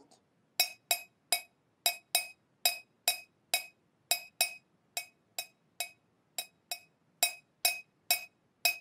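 Metal teaspoon stirring in a mug, clinking against its side about two to three times a second in an uneven rhythm, each clink ringing briefly.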